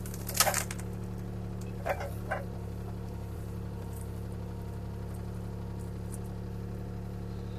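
CAT 303C CR mini excavator's diesel engine running steadily as the arm and thumb work against a tree, with a few sharp cracks in the first few seconds.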